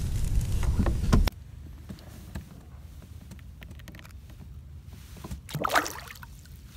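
A smallmouth bass being released by hand from a kayak, briefly splashing as it kicks free into the river, about five and a half seconds in. Before that, a low rumble of wind on the microphone with a few handling knocks stops abruptly after about a second.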